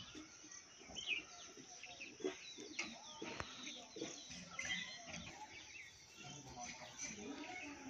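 Birds chirping in short, scattered calls over faint outdoor background noise, with a few light clicks.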